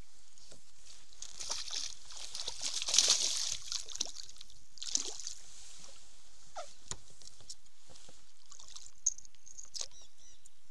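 Hooked peacock bass splashing and thrashing at the water's surface, strongest about three seconds in, with a few short clicks and knocks afterwards.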